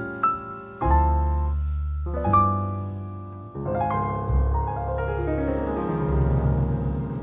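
Background piano music: slow, gentle notes and chords that ring and fade.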